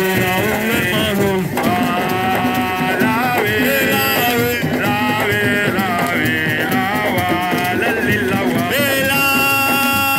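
Loud music with singing and instruments throughout.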